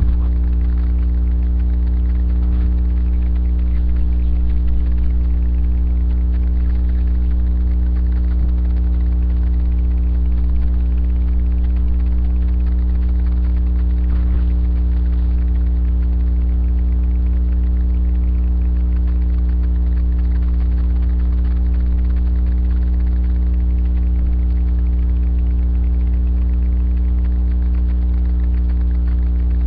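Loud, steady electrical hum, a low buzz with a ladder of overtones above it and no change throughout, typical of mains hum picked up by a webcam's microphone.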